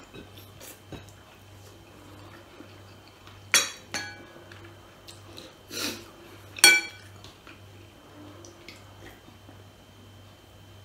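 Utensils clinking against plates and a glass serving bowl as food is dished out. There are a few sharp, ringing clinks about three and a half to four seconds in and again around six to seven seconds, the loudest near seven seconds, with quiet handling sounds between. A steady low hum runs underneath.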